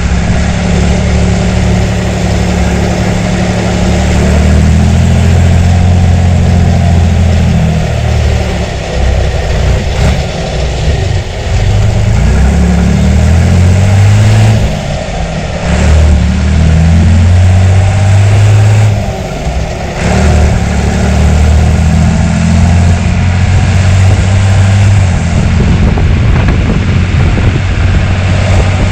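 John Deere 3350 tractor's six-cylinder diesel engine running loudly, its pitch shifting up and down several times as engine speed changes, with brief drops around a third and two thirds of the way through.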